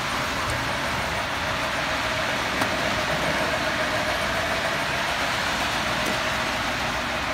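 Electric model train running steadily on three-rail track, a continuous motor and wheel whir with a faint steady hum. One small click about two and a half seconds in.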